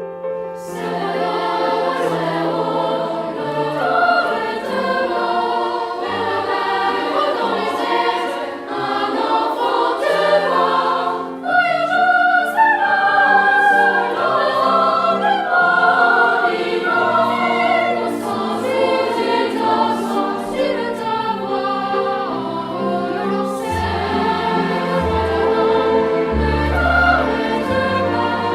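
Music: a choir singing over instrumental accompaniment, with deep bass notes coming in strongly near the end.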